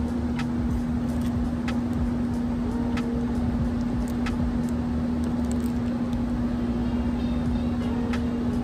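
A steady mechanical hum with a low rumble under it, and a faint tick about every second and a half.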